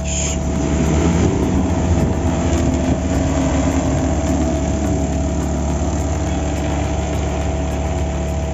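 DJI agricultural spraying drone's rotors running and lifting it off, a steady hum that swells in the first couple of seconds as it takes off and then holds as it climbs away.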